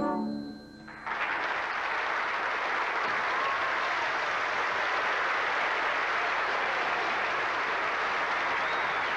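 The last bowed cello note dies away; then, about a second in, an audience breaks into steady applause that carries on to the end.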